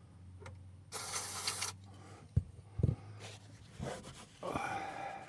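Aerosol can of contact cleaner spraying a short hissing burst about a second in, followed by two low thumps and rubbing handling noise.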